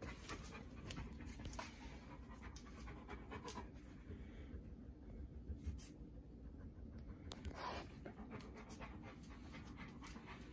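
A dog panting, with scattered soft clicks and rustles.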